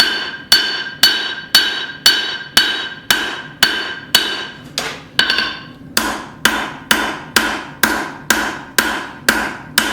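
Hand hammer striking hot square steel bar stock on an anvil: a steady run of blows, each with a metallic ring, about two a second at first. After a short break about five seconds in, the blows quicken to nearly three a second.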